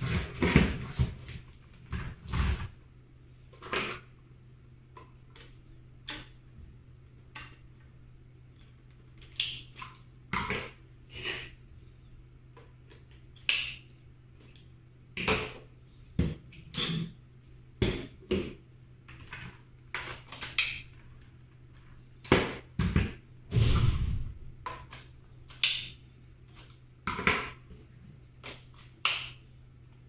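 Hard plastic parts of an INSE N5 cordless stick vacuum, switched off, clicking and clacking as the wand and attachments are snapped on and off and set down on a wooden tabletop, in irregular knocks every second or so with a few heavier thuds. A faint steady low hum lies underneath.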